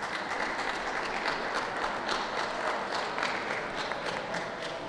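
Crowd applauding steadily, a dense patter of many hands clapping.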